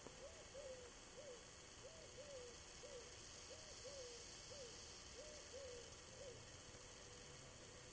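Faint cooing of a dove: a three-note phrase, two notes close together then a third after a short gap, repeated four times about a second and a half apart.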